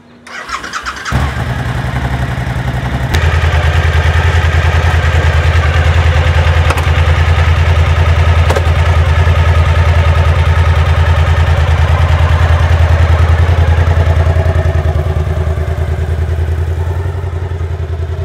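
Motorcycle engine cranked over and catching about a second in, then running at a steady idle. It gets louder from about three seconds and fades somewhat near the end as the bike rides away.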